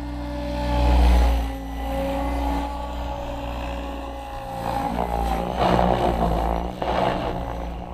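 Goblin 700 radio-controlled helicopter in flight: steady whine and chop of the rotor and motor. It swells louder about a second in and again around five to six seconds.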